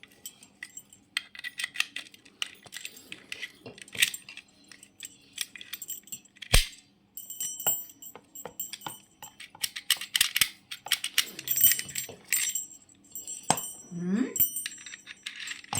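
Metal parts of a door handle lock set (plates, screws and fittings) clinking and knocking against each other as they are handled and sorted, with one louder knock about six and a half seconds in.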